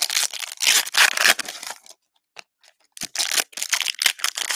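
Plastic wrapping on trading-card product being torn open and crumpled by hand, in two spells of crackling with about a second's pause between them.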